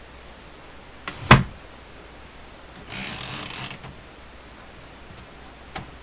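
Remington Portable Model 1 manual typewriter being worked: one loud, sharp mechanical clack a little over a second in, then about a second of rasping, sliding mechanism noise around three seconds in, and a faint click near the end.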